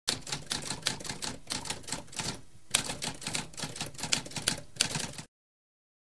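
Typewriter keys clacking in quick succession, several strikes a second, with a short pause about halfway through, stopping abruptly a little after five seconds.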